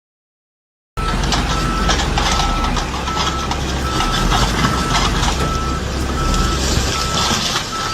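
A heavy vehicle's reversing alarm beeping at a steady pace over its running engine, starting about a second in.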